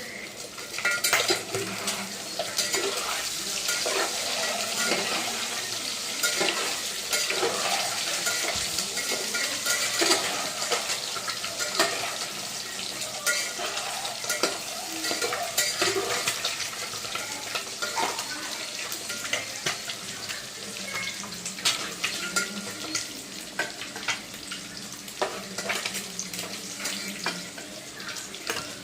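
Boiled eggs frying in hot oil with turmeric, a steady sizzle, while a metal spatula stirs and turns them, clinking and scraping against the pan many times.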